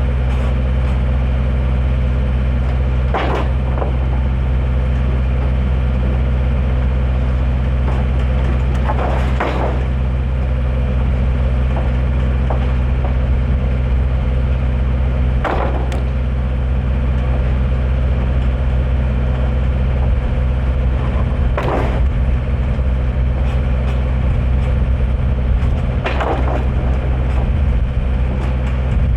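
An engine running steadily, with a sharp crack or knock about every six seconds.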